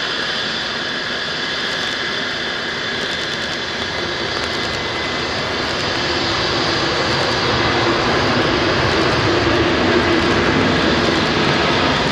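Aircraft turbine engines running: a steady rushing rumble with a high whine, growing louder about halfway through.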